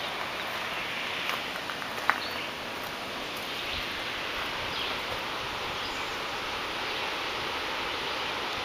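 Steady outdoor ambience: an even hiss of leaves rustling in the breeze, with faint bird chirps and a brief sharp tick about two seconds in.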